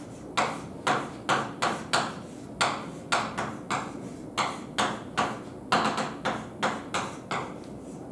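Chalk on a blackboard as equations are written: an irregular run of sharp taps and short scrapes, about two a second, as each stroke and symbol is put down.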